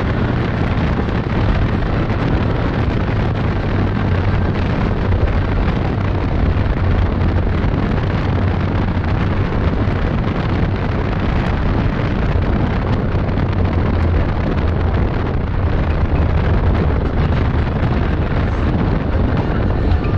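Can-Am Outlander XMR 1000 quad's V-twin engine running hard at steady speed, with wind buffeting the onboard microphone.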